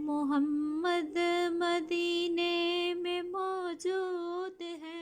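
An unaccompanied voice singing a naat, holding long wordless notes at nearly the same pitch, with short breaks between phrases.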